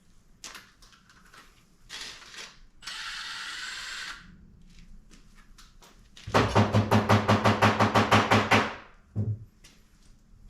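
Power tool backing out bolts while the timing chain tensioner is removed from a Nissan SR20DET engine. It gives a short steady whirr, then a louder pulsing run of about eight beats a second lasting a couple of seconds, ending in a single knock. Light clinks of handled metal parts are heard between.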